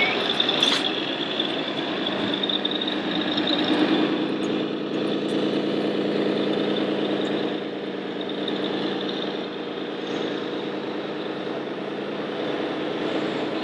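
Steady engine-like running from a radio-controlled model truck or construction machine, the even drone of a scale vehicle's sound system, growing fuller after about four seconds, with a thin high whine in the first few seconds.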